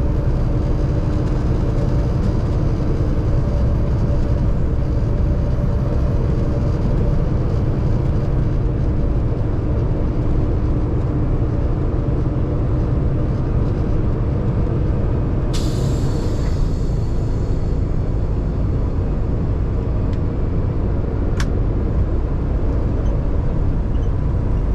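Paccar MX-13 diesel engine of a Kenworth T680 semi truck running steadily under way, heard from inside the cab with road noise. A short hiss of air about 15 seconds in, and a brief click a few seconds later.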